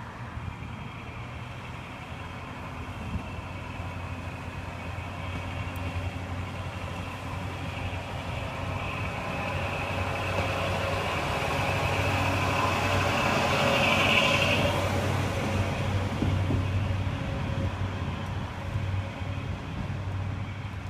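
JNR KiHa 20 diesel railcar with a DMH17-series diesel engine pulling away from the station and passing close by. The engine's steady drone grows louder until about two-thirds of the way through, then fades as the car goes past.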